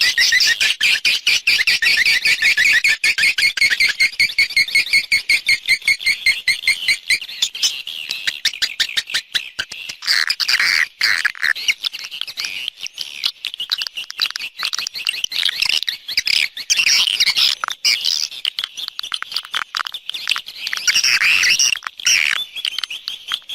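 Swiftlet calls from a swiftlet-house lure recording: a fast, evenly repeated run of high chirps, breaking up after about eight seconds into looser, irregular twittering.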